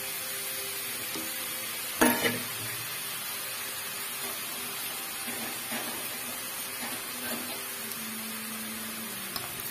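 Small pieces of maida flour dough deep-frying in hot oil in a steel kadai: a steady sizzle of bubbling oil. A single sharp knock sounds about two seconds in.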